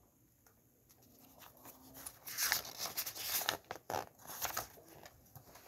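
Paper pages of a picture book rustling and crackling as they are turned, in a run of bursts from about two seconds in until near the end.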